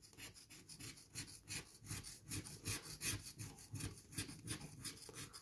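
The edge of a large gold coin scratching the latex coating off a paper scratch-off lottery ticket. It goes in quick, short, faint strokes, about four a second.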